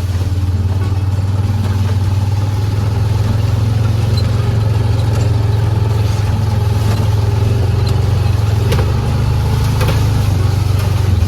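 A motor vehicle's engine running steadily at low speed over rough ground, with a few short knocks and rattles.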